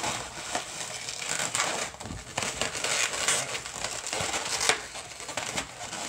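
Inflated latex modelling balloons being handled and twisted, rubbing against each other and against the hands in irregular scrapes with a few short sharp crackles, as a lost pinch twist is reworked.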